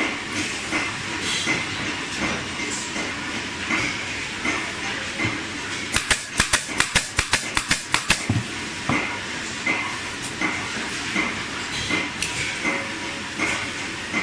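A pneumatic staple gun fires a quick run of about a dozen sharp shots over roughly two seconds, near the middle, fastening the bellows cover to its wooden board. Underneath runs a steady workshop machine noise with regular light clicks.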